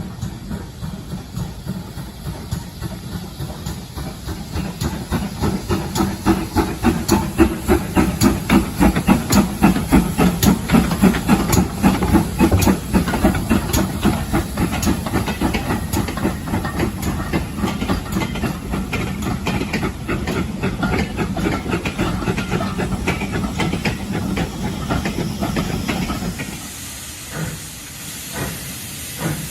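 Steam locomotive working past, its exhaust chuffing in a quick, even rhythm over a steady hiss of steam. The beats are loudest from about a fifth to half of the way in and die away about 26 seconds in.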